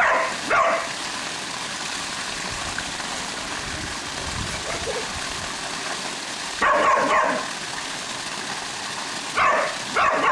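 Border collie barking at a pool waterfall, in short bursts: two at the start, a cluster about seven seconds in, and two near the end. Under the barks runs the steady rush of the sheet waterfall pouring into the pool.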